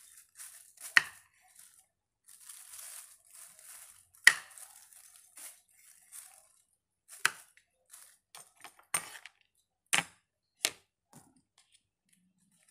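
Vegetables being cut by hand on a wooden cutting board: about six sharp cracks, irregularly spaced, with softer plastic-bag rustling between them.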